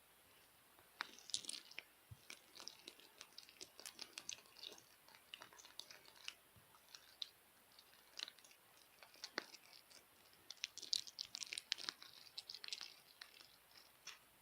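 Stiff, hard slime being squeezed and worked by hand, giving dense crackling clicks and small pops that start about a second in.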